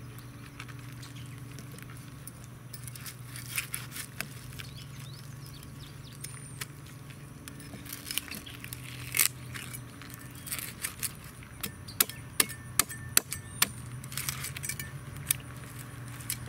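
Cleaver striking paddlefish pieces and a wooden cutting board: scattered sharp knocks at first, then a quicker run of about two or three knocks a second near the end, over a steady low hum.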